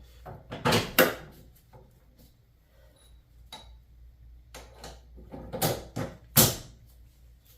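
Metal parts and tools knocking and clattering during front hub installation: a cluster of loud clanks about a second in and another around six seconds in, with lighter clicks between.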